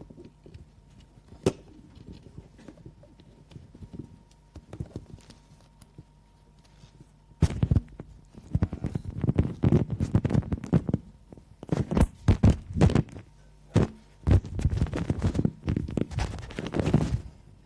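Lapel microphone being handled and clipped onto a shirt: loud, irregular rustling and knocking from the mic rubbing and bumping against cloth, starting about seven seconds in after a few scattered clicks.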